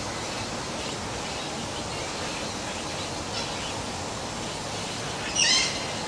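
A single short, harsh parrot screech about five and a half seconds in, with a few faint bird calls before it, over a steady background hiss.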